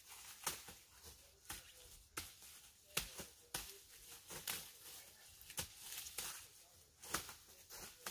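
Dry corn stalks and leaves crackling and snapping in irregular sharp rustles, one or two a second, as the stalks are cut and handled.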